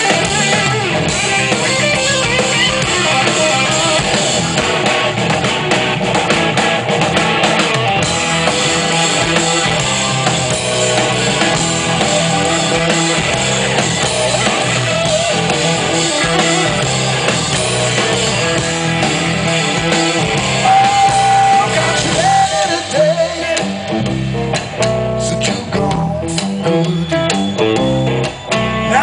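Blues-rock band playing live: electric guitar, bass and drums together. A little past two-thirds through, a single guitar note is held, then the band drops to sparser stop-start hits with guitar lines between them.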